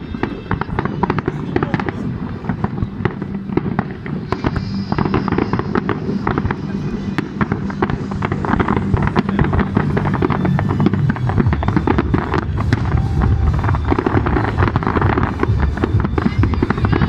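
Fireworks display: a dense, continuous run of bangs and crackling from many shells bursting together, growing louder and busier in the second half.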